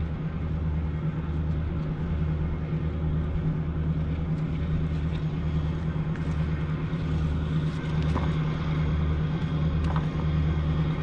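Diesel engines of a river pushboat driving a barge convoy, a steady low drone with a deeper throb that beats about once a second.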